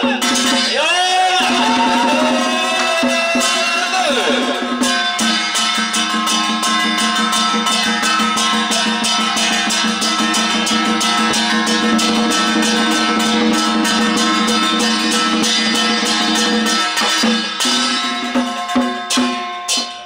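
A Taoist ritual master chanting into a microphone over temple ritual music with a steady droning tone. From about five seconds in, fast, even percussion joins and carries the music.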